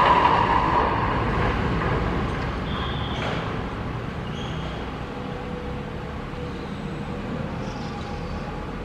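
A passing vehicle's noise fades away over the first couple of seconds, leaving a steady rumble of street traffic with a brief high squeal about three seconds in.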